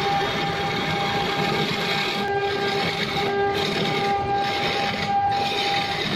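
Wood lathe running while a hand-held turning tool cuts into a spinning wooden blank: a steady rushing cutting noise with a thin, high whine that fades out for a while and comes back.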